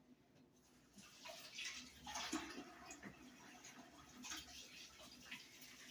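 Faint splashing of running tap water as hands are washed, starting about a second in.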